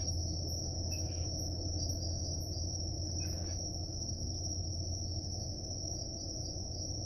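Crickets chirping in a steady, high-pitched chorus, over a low, steady rumble.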